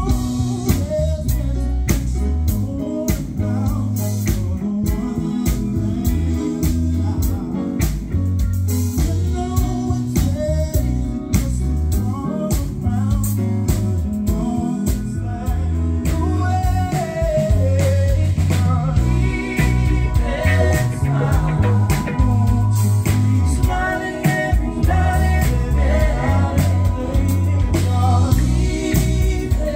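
Live band playing: a woman singing over electric guitars, bass guitar and a drum kit.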